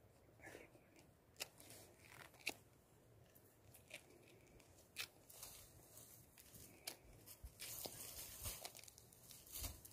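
Fresh orange peel being torn off by hand: faint, separate short rips and snaps, with a longer rustle near the end.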